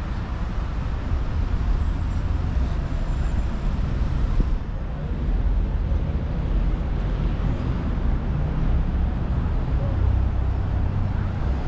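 Road traffic on a busy city street: a steady low rumble of passing motor vehicles.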